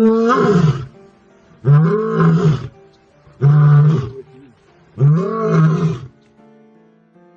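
A lion roaring: four long, deep roars about a second and a half apart, each rising and then falling in pitch, the last ending about a second before the end.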